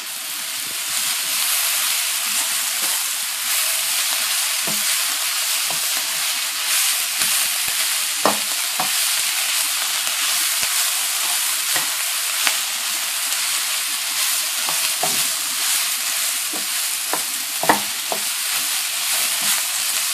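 Shredded cabbage, carrots and green beans sizzling steadily in hot oil in a pan while a wooden spoon stirs them, with a few sharp knocks of the spoon against the pan. The vegetables are being stir-fried down over the heat.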